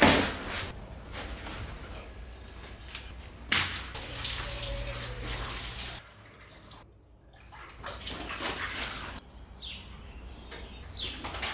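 Water running from a garden hose into an inflatable paddling pool, heard in several short stretches that change abruptly.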